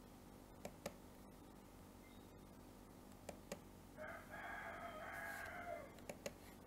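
Computer mouse clicks in quick pairs, three times, as text is edited. Between the second and third pair comes a faint drawn-out animal call of about two seconds in the background.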